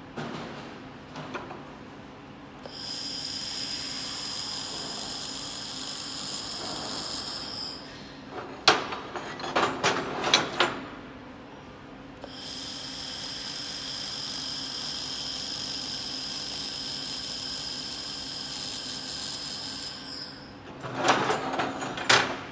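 2000 W handheld laser welding gun welding aluminum bar in two passes, about five and eight seconds long, each a steady high-pitched whine. Between the passes and near the end come sharp knocks and clatter as the aluminum pieces are handled.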